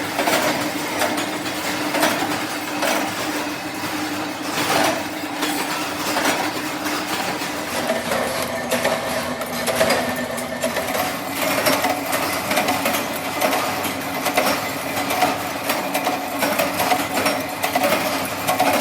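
Workshop machinery running: a steady motor hum under a fast, uneven clatter of clicks and knocks. The hum drops slightly in pitch about eight seconds in.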